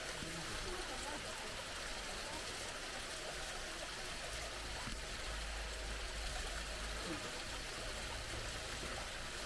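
Steady rush of running water, with faint voices in the background and a low rumble in the middle.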